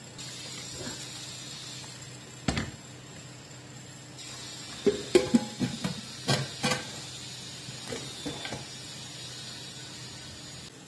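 Water pours into a stainless-steel pressure cooker with a steady splashing hiss. Then comes a burst of loud metal clanks and clicks as the pressure cooker's steel lid is fitted and its handles are locked, followed by a few lighter ticks.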